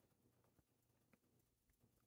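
Near silence: faint room tone with a couple of weak clicks.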